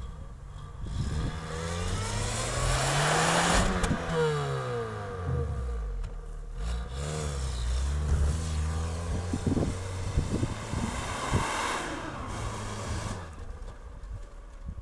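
Lada Niva 4x4's engine revving hard under load as the car climbs a snowy slope, rising in pitch to a loud peak a few seconds in, then easing off. It surges again for several seconds in the second half.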